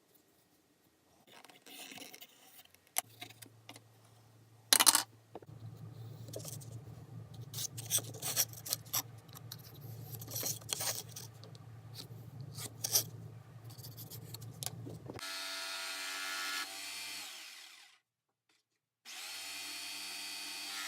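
Power tool working wood: handling noise and a sharp knock, then about ten seconds of the tool cutting into the wood with scattered clicks. After that a power drill's motor whines freely, winds down and stops, then starts up again and runs steadily near the end.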